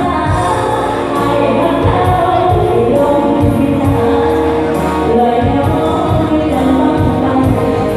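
Thai live band playing a song with singing, over a steady drum beat of about two thumps a second.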